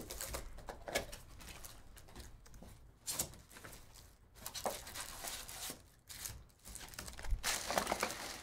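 Plastic shrink wrap crinkling and tearing as it is stripped from a sealed box of trading cards, with the cardboard box and foil packs rustling in irregular bursts.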